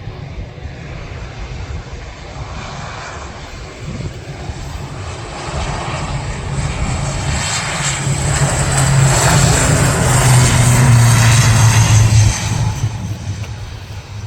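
Airplane engines growing steadily louder to a loud peak in the second half, then dropping away fairly quickly near the end, as an aircraft passes close by.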